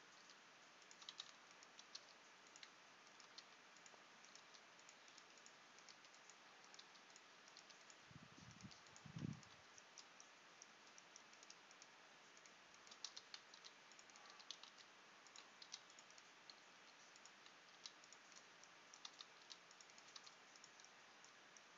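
Faint computer keyboard key presses, short clicks in scattered clusters, with one brief low thump about eight to nine seconds in.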